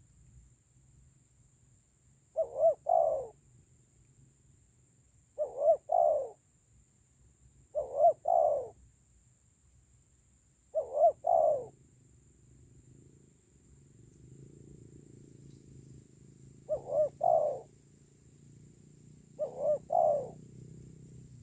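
Spotted dove (tekukur) cooing: six three-part coos, two short notes and a longer drawn-out one each, every few seconds with a longer pause midway. A faint steady high hiss runs underneath.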